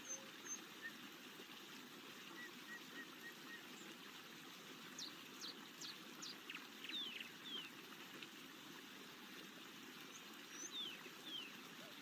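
Forest ambience: a faint, steady rushing background with small birds chirping. A short run of about five soft notes comes a couple of seconds in, then clusters of quick, mostly falling chirps around the middle and near the end.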